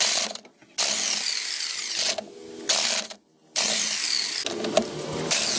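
A power tool running in bursts of a second or two, cutting off briefly three times.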